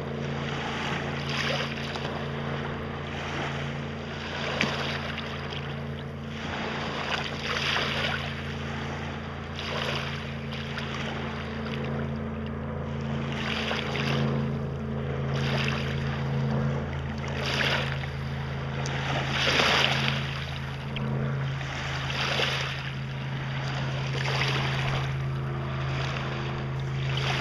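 Small freshwater lake waves washing and lapping close by, a soft surge about every two seconds. Underneath runs a steady low engine hum from a motorboat out on the lake.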